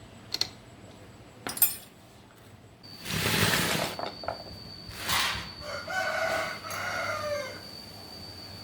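A rooster crows once about six seconds in, one long call that drops in pitch at its end. It follows a loud burst of hissing noise lasting about a second and a shorter one, with a few light clicks before them.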